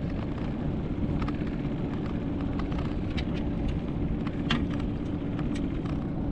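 Steady low rumble with a faint hum, over which come scattered light clicks and taps from fishing tackle being handled as a small mackerel is reeled in and unhooked on a small open boat.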